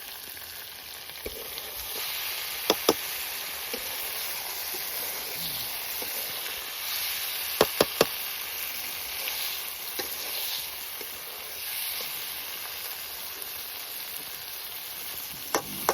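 Chicken sizzling as it fries in oil in a pan, a steady hiss. A few short sharp clicks, two a few seconds in and three in quick succession near the middle, like a spoon knocking the pan while stirring.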